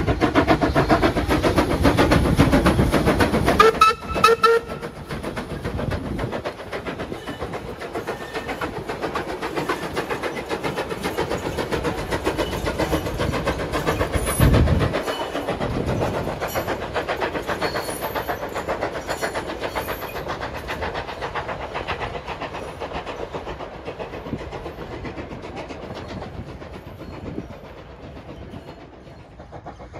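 Steam locomotive NM25, a former Commonwealth Railways NM class, working hard past the listener with rapid exhaust beats and a short whistle about four seconds in. The carriages then roll by with wheel clatter, and the sound fades toward the end, with a brief low thump about halfway through.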